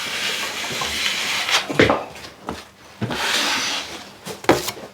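Hand tool scraping and rubbing against drywall in stretches, with a few sharp knocks.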